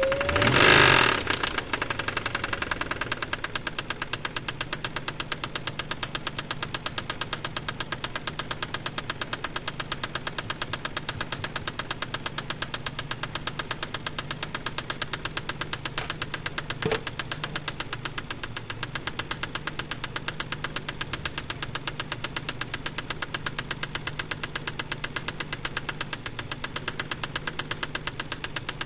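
Mazda KLZE 2.5 L V6 running with a rapid, steady, even knock: the sign of a spun crankshaft bearing on cylinder No. 6. A brief louder burst in the first second gives way to the steady knocking.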